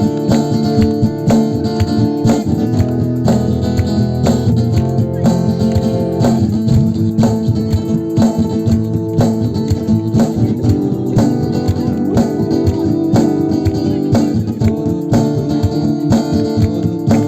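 Acoustic guitar strumming a steady rhythmic chord pattern in an instrumental passage between verses, layered through a loop pedal.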